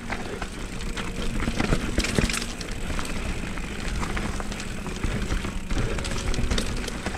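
Mountain bike rolling down a steep, rough dirt trail, heard from a helmet or bike-mounted action camera: a steady rush of tyre and wind noise with frequent small knocks and rattles from the bike over the ground.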